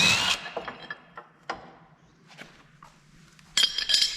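Cordless impact wrench spinning out a loosened bumper bolt in short bursts, with a rising whine at the start and a rattle of quick hammering pulses near the end, and metal clicks and knocks between.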